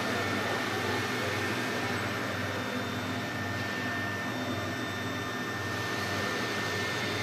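Steady hum and hiss with a high whine held on one pitch, from a powered-up CNC engraving router and its control electronics.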